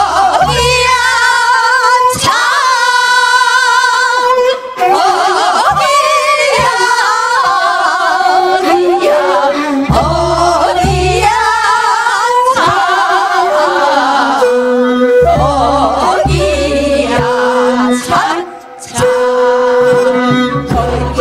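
Women singing a Korean folk song (minyo) into microphones, amplified in a hall, the melody carried with wide vibrato. An instrumental accompaniment plays under it, with a deep low note that returns every few seconds.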